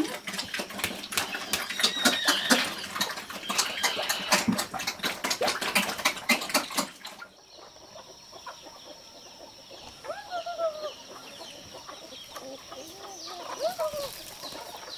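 Pigs eating wet slop from a trough: a dense run of smacking, slurping clicks that cuts off suddenly about seven seconds in. After that, chickens cluck a few times over a steady high-pitched whine.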